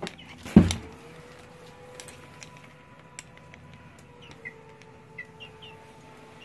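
A loud thump about half a second in, then scattered sharp clicks of a chicken pecking at cockroaches on a tiled floor over a steady low hum. Near the end the chicken gives a few short, high chirps.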